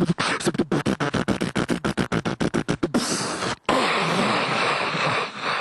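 Beatboxing into a handheld microphone: a fast run of sharp mouth-made drum hits for about three seconds, then sustained hissing, scratchy noise effects with a short break, fading near the end.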